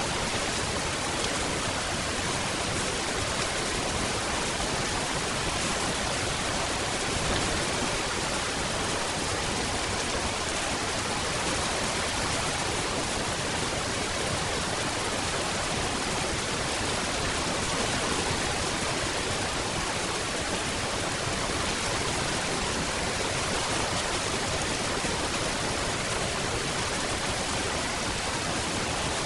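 Steady, even rainfall: a dense hiss with no single drops, thunder or other events standing out.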